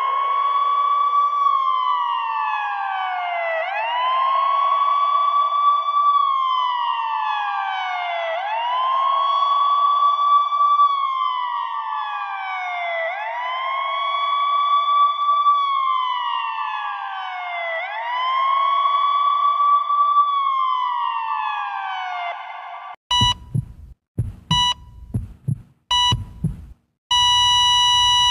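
Emergency siren in a slow wail, rising, holding and falling again every few seconds. It stops and gives way to a few slow heart-monitor beeps. Near the end comes a steady flatline tone, the monitor's sign that the patient's heart has stopped.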